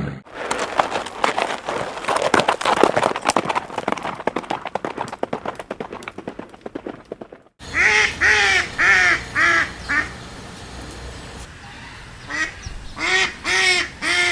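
Animal calls: a dense, rapid clattering chatter for about seven seconds, then, after an abrupt cut, short arching nasal calls in runs of three or four.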